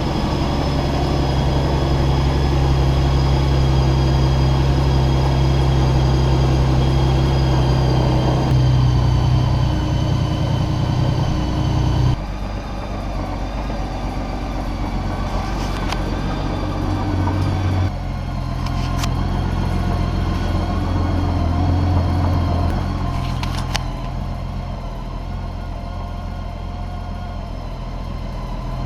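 Honda Gold Wing GL1800's flat-six engine idling steadily, its note and level shifting a few times.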